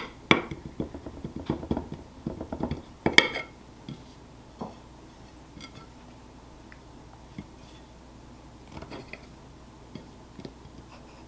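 A metal table knife knocking and scraping against a plate while cutting pieces of cake: a quick run of clicks and knocks for about the first three seconds, then only a few faint, scattered clicks.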